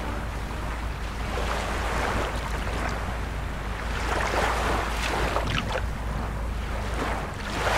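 Small waves washing up onto a sandy shore in repeated surges, with wind rumbling on the microphone.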